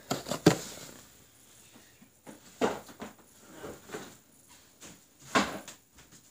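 Handling noises: a couple of sharp clicks as a boxed item is handled and set down on a table, then scattered soft knocks and thuds as the person moves away from the table and about the room.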